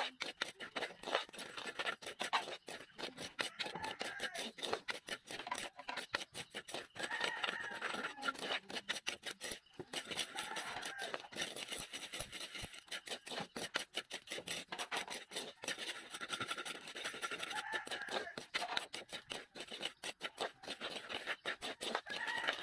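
Metal ladle-spatula scraping and stirring dry grains in a hot wok: quick, repeated scrapes of metal on the pan with the grains rustling, as the grains are dry-roasted until dark for grain coffee.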